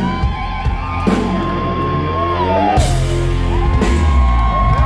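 Heavy metal band playing loud and live: a high note is held for about two seconds and then slides down, over pounding bass and drums. The low end drops out for a moment just before the halfway point, then another high note is held near the end.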